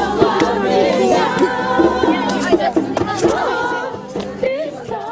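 A group of people singing together, many voices at once, with a few sharp claps or knocks; it fades out near the end.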